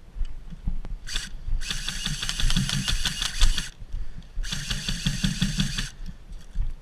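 Airsoft electric gun (AEG) firing on full auto: its motor and gearbox whir and cycle rapidly in three bursts, a brief one about a second in, then a burst of about two seconds and another of about a second and a half.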